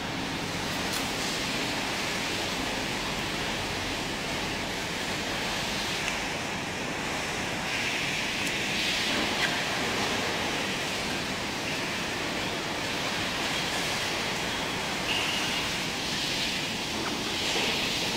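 Steady rushing background noise of a large fish-market hall, with a few faint clicks and knocks.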